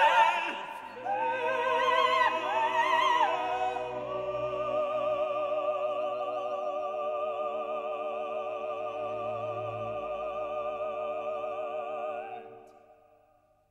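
Operatic singing with heavy vibrato over classical accompaniment: a few moving phrases, then a long held note from about four seconds in, which fades out near the end.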